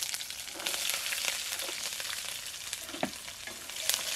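Peeled shallots and whole spices sizzling steadily as they fry in hot oil in a stainless steel pan, with a few light clicks as they are stirred.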